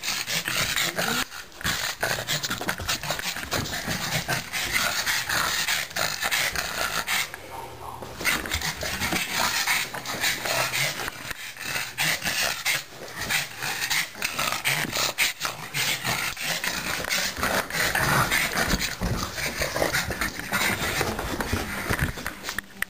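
A pug panting and growling during rough play, with a short lull about seven seconds in.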